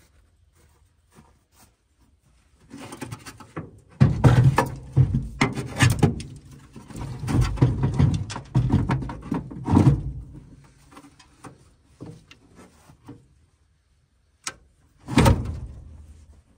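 A heavy car battery being set down into an engine bay and shifted into place: a run of knocks, scrapes and clunks of the battery case against the metal of the tray and fender. A single clunk follows near the end.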